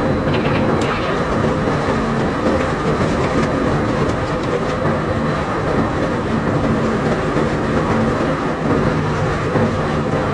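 Unloading machinery on a sand barge running steadily. A constant dense rattle and clatter sits over an even mechanical hum.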